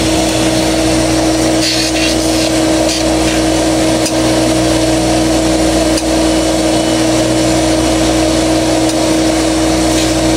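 Flood-soaked sewing machine clutch motor running steadily, with a loud hum and a rough, gritty noise over it. It is the noisy one of the motors, and the mechanic takes the noise for a bearing that needs replacing.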